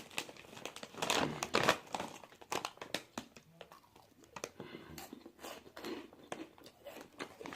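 Watz Cheese Shock puffed chips being eaten and their snack bag handled: irregular crisp crunching and crinkling crackles.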